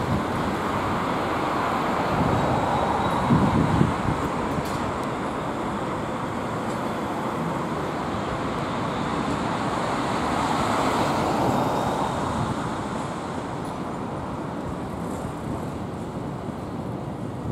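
Steady city traffic noise that swells twice as vehicles pass.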